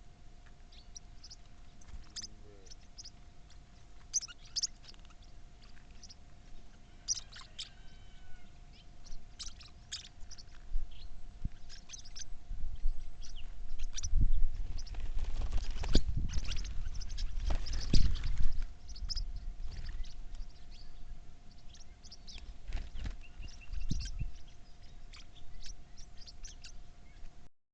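Birds chirping and calling in many short notes, with a few gliding calls, over a steady faint hum. Around the middle, a louder stretch of low rumbling noise with a few knocks.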